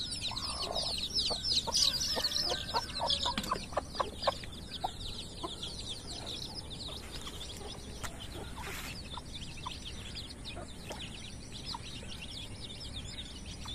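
A mother hen clucking as she feeds with her brood, while the young chicks keep up a rapid, high peeping. The peeping is busiest in the first few seconds and then grows fainter.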